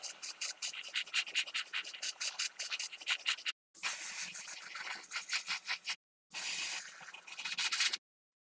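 Rapid hand scrubbing or scraping, many short strokes a second, in three short stretches cut off abruptly into silence.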